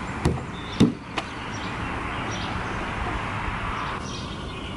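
A small toy basketball striking a plastic toy basketball hoop: three sharp hollow knocks in quick succession, the last one softer.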